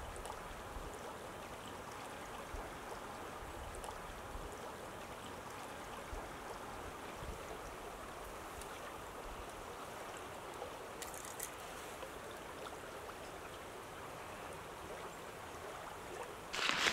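A small river flowing steadily over rocks, an even rushing of water. Near the end, louder rustling noise breaks in.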